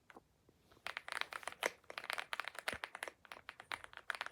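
Typing on an AULA F75 Pro mechanical keyboard with pre-lubed Reaper switches: a quick, irregular run of keystroke clacks that starts about a second in.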